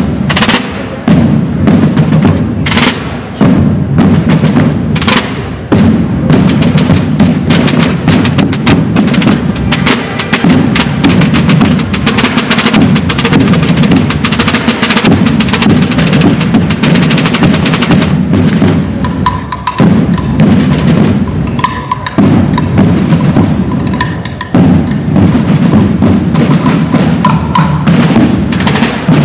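A procession drum corps: many drums beating together in a dense, rapid rhythm with rolls, deep bass drums underneath, breaking off briefly a few times.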